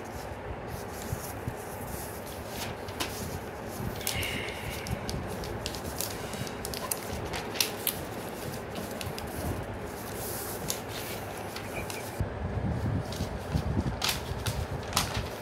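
A sheet of paper being handled and folded by hand, rustling and crackling with scattered sharp crease clicks. Underneath is a steady low rumble that grows louder near the end.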